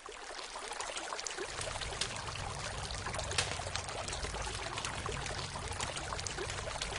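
A stream running and pouring, mixed with the frequent sharp crackle of a campfire; a low rumble joins in about a second and a half in.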